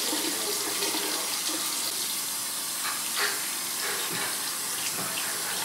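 Tap water running steadily into a sink, with a small knock about three seconds in.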